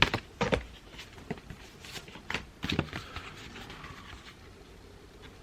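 Cardboard packaging and printed cards being handled: irregular taps, knocks and rustles, loudest near the start.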